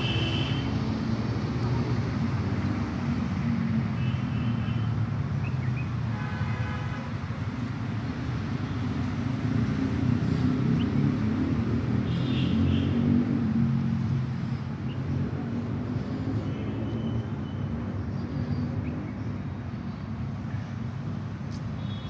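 Steady low rumble of road traffic that swells about ten to thirteen seconds in, with a few brief high chirps over it.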